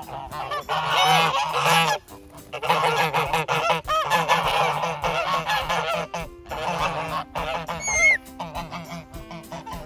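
A flock of geese honking loudly, with many calls overlapping in three long spells separated by brief lulls, then quieter calling near the end.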